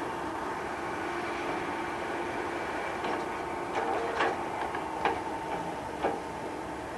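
Hydraulic log loader working: a steady diesel engine drone with a faint whine, and about four sharp knocks roughly a second apart in the second half as its grapple handles the logs.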